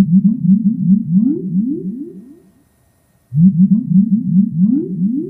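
Low synthesized sound effect made of quick rising pitch glides, several a second, in two runs with a short break between them about three seconds in.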